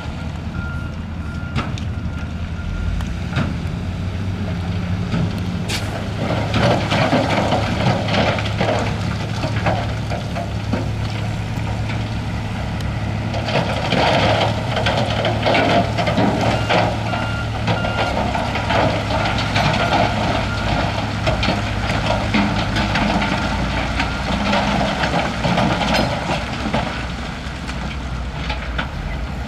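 Heavy diesel earthmoving machinery running under load, with a reversing alarm beeping near the start and again midway, and long spells of rock and gravel grinding and clattering as it is pushed.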